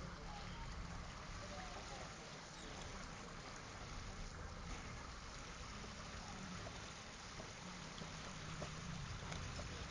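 Excavator's diesel engine running steadily, a low even rumble.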